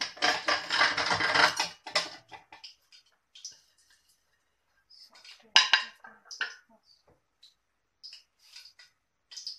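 A spoon scraping and clinking against a bowl while stirring the seasoned cornstarch coating: a dense stretch of scraping for about the first second and a half, then scattered clinks, the loudest a sharp knock about five and a half seconds in.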